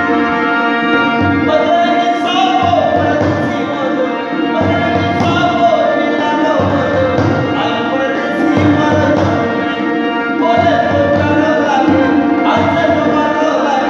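Marwari folk song: a harmonium holds sustained chords under a wavering sung melody, with a hand drum keeping a steady beat.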